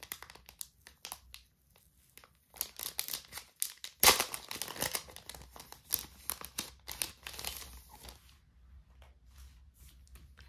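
Thin clear plastic sleeve crinkling and crackling as hands handle it and slide printed insert cards out, the loudest crinkle about four seconds in. It thins to a few light rustles after about eight seconds.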